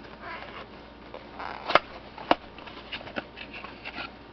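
Packaging being opened by hand: soft rustling of cardboard and plastic, broken by two sharp clicks a little over half a second apart and a few fainter ticks.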